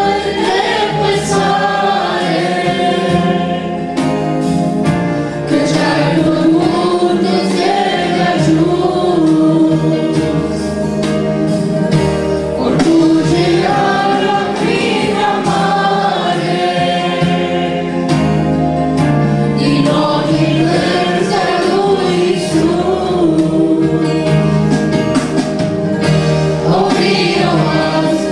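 Mixed youth choir of male and female voices singing a Romanian Christian hymn through microphones, over a steady instrumental backing with low bass notes that change every couple of seconds.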